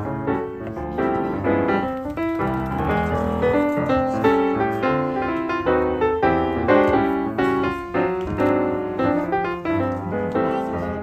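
Background piano music: a steady melody over a chordal accompaniment.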